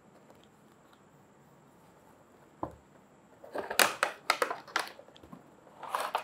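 Cardboard box handled and a clear plastic packaging tray pulled out of it, crinkling and crackling. It starts quiet, with one knock about two and a half seconds in, then a run of sharp crinkles a second later and a few more near the end.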